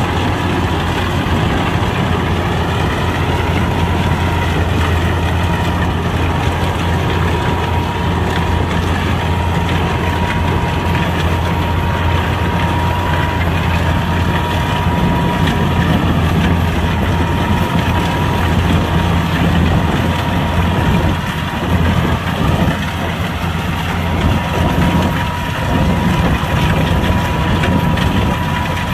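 Kubota combine harvester's diesel engine running steadily, with a constant whine from the machinery carried over the engine's low drone.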